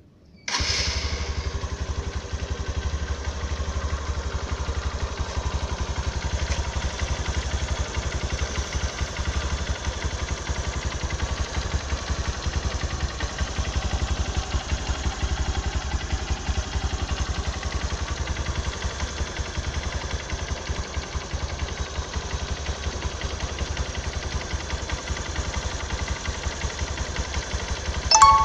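Honda Mega Pro motorcycle's single-cylinder engine running steadily through its stock exhaust, coming in abruptly about half a second in.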